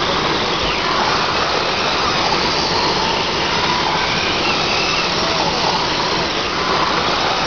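Radio-controlled pro trucks racing on a dirt oval track, their motors making faint whines that rise and fall as they pass, over a steady rushing noise.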